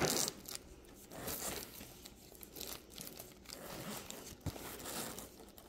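Plastic file folders and papers rustling and crinkling as a hand rifles through a packed organizer bag, in irregular bursts.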